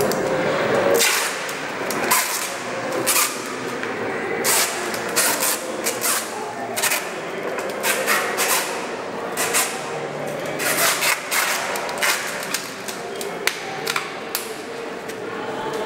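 Irregular sharp knocks and clicks of hands and hardware working on a wooden timber frame, a few strokes a second at uneven spacing.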